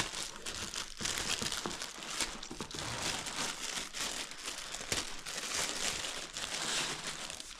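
Plastic packaging crinkling and rustling continuously as vacuum parts are handled and unwrapped, with scattered small clicks and knocks.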